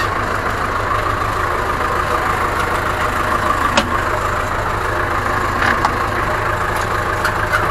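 Ursus tractor's diesel engine running steadily, with a single sharp click about four seconds in.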